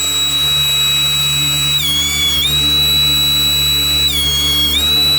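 Benchtop thickness planer running with a steady high whine. Twice its pitch sags briefly and then recovers, as the motor takes the load of cutting end grain on a cutting board.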